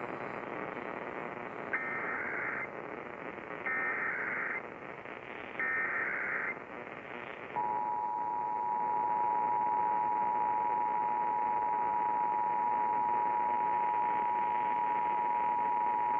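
Emergency Alert System Required Monthly Test heard over a radio broadcast with a steady hiss. There are three short bursts of SAME digital header data, each under a second, about two seconds apart, then the two-tone EAS attention signal (853 and 960 Hz sounding together), held steady for about eight and a half seconds until it stops abruptly.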